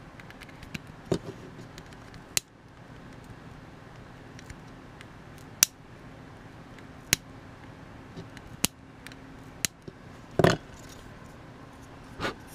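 Flush cutters snipping off the protruding pins of soldered Thonkiconn jacks: sharp single snips every second or two, the clipped pin ends flying off. A louder clatter comes about ten seconds in.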